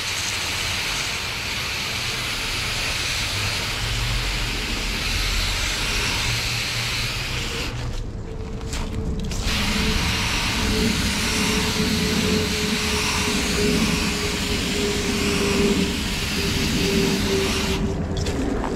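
Low-pressure water spray from a garden-hose pistol nozzle hissing and splashing against the fins of an air-conditioner condenser coil, rinsing it before a foam coil cleaner goes on. The spray breaks off briefly about eight seconds in and again near the end, and a thin steady tone runs alongside it in the second half.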